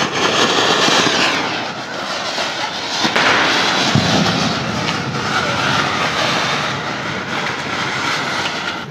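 Several ground fountain fireworks (anar, 'paus') spraying sparks with a loud, continuous hissing rush. A sharp crack comes about three seconds in.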